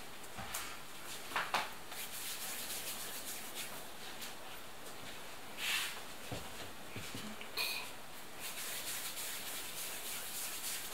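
Hands rolling and pinching soft yeast dough into balls on a work surface: a steady soft rubbing, with a couple of louder scuffs.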